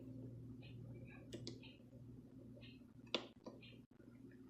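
A few faint clicks from the KitchenAid coffee maker's control-panel buttons, a small one about a second and a half in and a sharper one about three seconds in, over a low steady hum.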